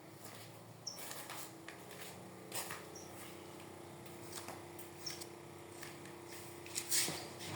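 Small 5 W portable fan's motor running with a steady hum, with scattered clicks and rustles over it and a short high squeak about every two seconds.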